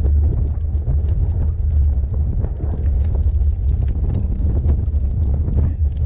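Wind buffeting the microphone as a steady low rumble, over the irregular crunch and rattle of an e-bike's tyres rolling along a gravel track.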